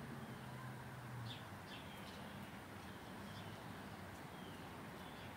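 Faint birds chirping: several short, high chirps over a quiet outdoor background. A low steady hum stops about a second in.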